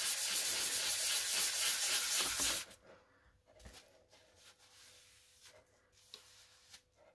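Wet-and-dry sandpaper, 400 grit, rubbed back and forth in rapid strokes over the primed and filled cowl of a model aircraft, stopping suddenly about two and a half seconds in. After that, only faint wiping and a few soft taps.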